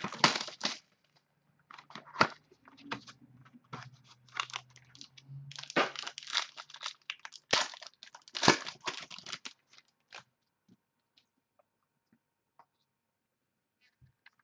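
Plastic wrapping on a trading-card box and pack crinkling and tearing as it is opened. It is a dense run of crackles for about ten seconds, then only a few faint ticks.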